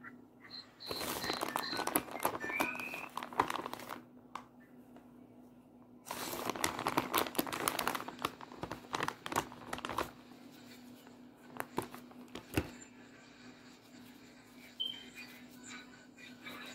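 Plastic bag of shredded cheese crinkling as it is squeezed and shaken out, in two long spells of crackling about a second and six seconds in, then scattered lighter crinkles. A steady low hum runs underneath.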